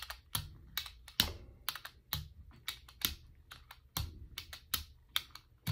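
Rubber brayer rolled back and forth through paint on a gel printing plate: a dense run of sticky crackling clicks, with a soft low thump about once a second as each stroke goes.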